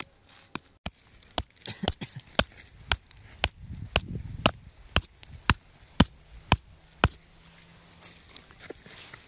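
A wooden stick jabbed repeatedly into hard, stony soil, digging: sharp knocks about two a second that stop about seven seconds in.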